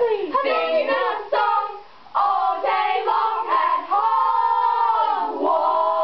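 A group of girls singing together a cappella, several voices at once in sung phrases with a short break about two seconds in and long held notes near the end.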